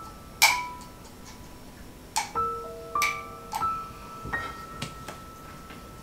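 Soft background music of single mallet-like notes, with several sharp clicks of kitchen tongs knocking against a glass jar while coleslaw is packed into it. The loudest click comes about half a second in.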